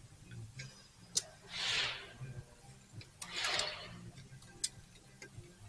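A few sharp clicks and ticks, as of hand tools being handled, with two short hissing bursts about a second and a half apart over a low steady hum.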